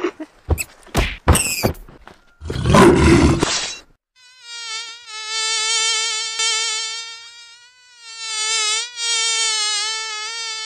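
A few quick knocks and a short noisy burst, then an insect-like buzz for a dragonfly that starts about four seconds in and holds for about six seconds, steady with many overtones and a slight waver in pitch.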